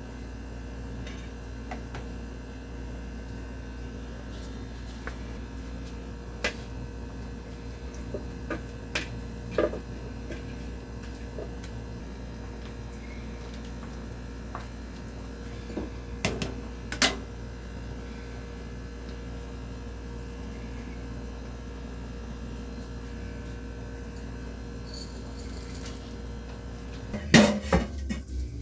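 Kitchen utensils and pots clinking and knocking now and then over a steady electrical hum, with a louder clatter of several knocks near the end.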